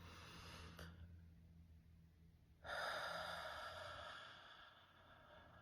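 A person breathing slowly: a faint breath in at the start, then, about two and a half seconds in, a long audible breath out that fades away.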